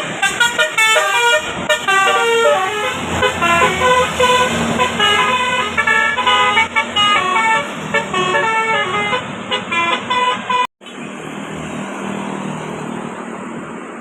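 Telolet 'basuri' bus horn, a multi-tone musical horn playing a quick tune of short, shifting notes for about ten seconds. It then cuts off abruptly, and a steady wind-like rush follows.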